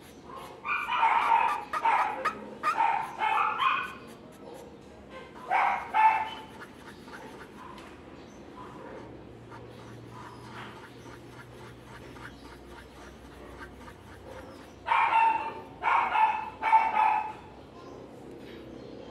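A dog barking in short repeated barks: a run of barks in the first few seconds, another about six seconds in, then quiet until a second run near the end.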